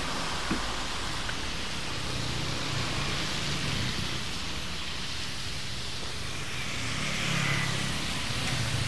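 Road traffic passing on a wet road, a steady hiss of tyres on water with engine hum. The hum swells as vehicles go by, most strongly near the end as a motorcycle and cars approach.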